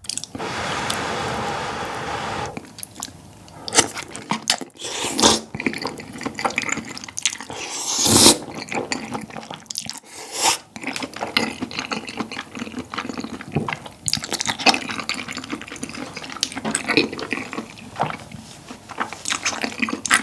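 Close-miked slurping of sauce-soaked glass noodles from spicy tteokbokki, a long slurp at the start and another loud one about eight seconds in, with wet chewing and lip smacks between.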